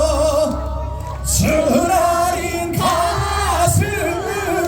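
Live trot song with a band and a male singer holding long notes with vibrato, the audience singing along.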